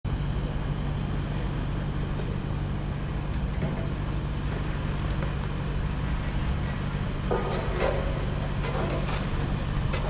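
City street ambience: a steady rumble of traffic with a low hum underneath, and a few voices of passers-by breaking through about seven to nine seconds in.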